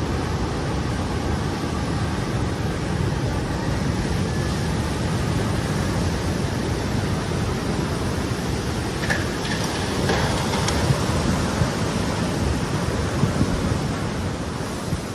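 Steady rushing noise of surging sea water and wind, heavy in the low end, with a few faint clicks about nine to eleven seconds in.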